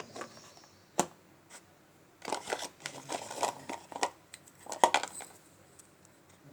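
Dry multani mitti (Fuller's earth clay) crunching and crackling as it is bitten and chewed: a sharp single crack about a second in, then a run of crisp crunches for about two seconds and a last loud crunch near the end.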